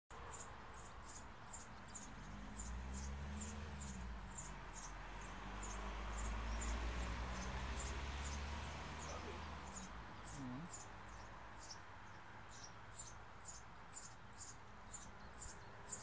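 Sparrow nestlings begging from inside a birdhouse: fast, high-pitched chirps repeating about three times a second as a parent feeds them at the entrance hole, over a low rumble that fades a little after halfway.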